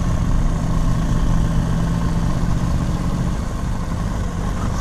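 BMW R1200GS liquid-cooled boxer twin running steadily under the rider, with wind and road noise over it; the engine note eases a little over the last second and a half.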